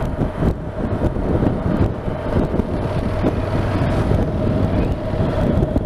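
Motorcycle riding noise: low wind rumble on the microphone over the steady hum of a Honda NC750X's parallel-twin engine cruising at an even speed.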